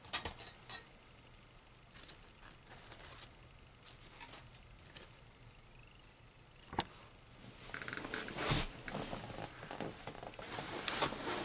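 Handling noise from unpacking by hand: a few sharp clicks at the start and one about seven seconds in, then a crinkling rustle of paper towel packing being moved for the last few seconds.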